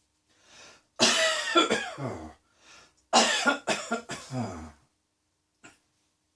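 A person coughing in two fits of several coughs each, the first about a second in and the second about three seconds in, with a breath drawn before each fit.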